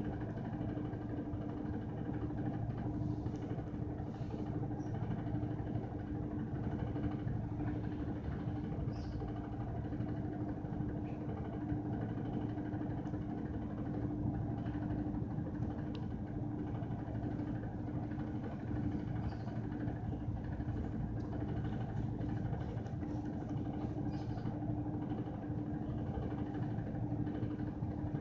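Washing machine running: a steady motor hum with one constant tone over a low drone, unchanging in level.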